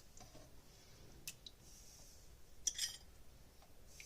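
Quiet kitchen with a few faint clinks of kitchenware: a couple of light taps a little over a second in and a short cluster near three seconds.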